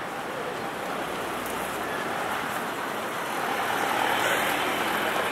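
City road traffic running steadily, with one vehicle passing closer and louder about three and a half to five seconds in.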